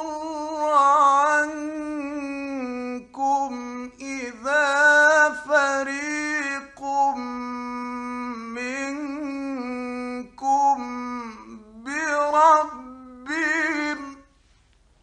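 A man reciting the Quran in a melodic chant, holding long ornamented notes with short pauses for breath. The voice stops about a second before the end.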